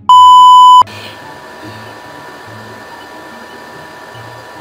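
Edited-in test-tone beep laid over a colour-bars screen: one loud, high, steady beep lasting under a second, cutting off sharply. After it a steady, fairly quiet background hiss.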